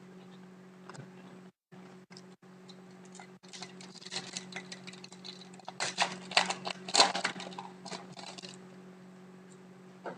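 Crinkling and rustling of a hockey card pack's wrapper and cards being handled, a dense crackle that is busiest in the middle few seconds, over a steady low hum.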